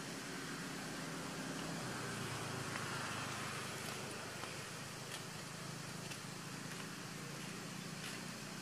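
Steady low hum under an even hiss of outdoor background noise, with a few faint ticks.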